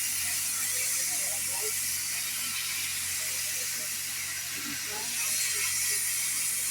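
Steady high hiss over a low hum, swelling a little about five seconds in, with faint murmur of voices; no whistle is sounding.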